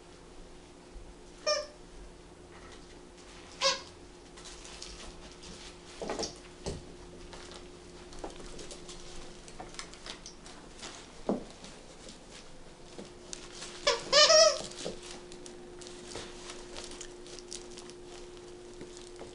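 A plush squeaky cow toy squeaked by a wirehaired dachshund's chewing: short squeaks about one and a half and three and a half seconds in, and a louder double squeak about fourteen seconds in, with soft rustling and pattering between.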